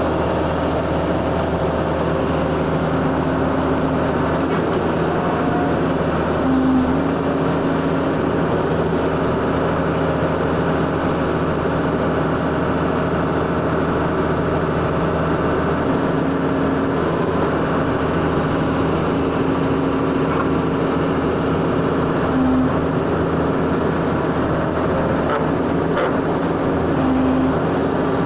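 Engine of a powered ground-digging drill running steadily, a continuous low engine drone at an even pitch and level.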